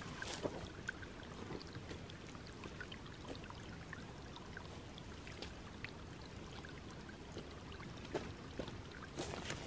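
Small shallow creek trickling steadily over rocks and moss, with a few footsteps on dry ground near the end.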